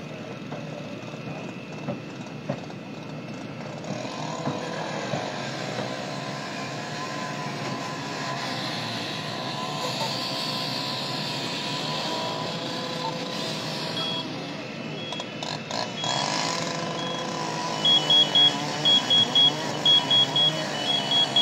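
A vehicle engine running steadily. From about two-thirds of the way in, rapid high-pitched electronic beeping in short repeated groups is the loudest sound.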